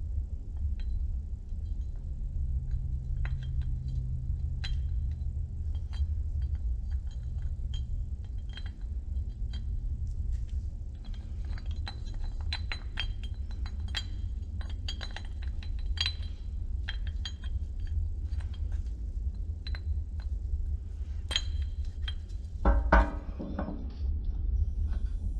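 Light metal clinks and taps of U-joint parts and tools being handled at a bench press, over a steady low hum. About 23 seconds in there is a short, louder rattle.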